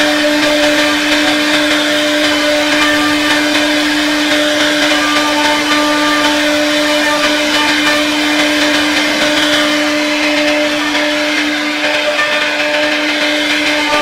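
CNC router spindle running at a steady pitch while its bit carves relief patterns into a wooden door panel, the motor's whine over the hiss of the cutter in the wood.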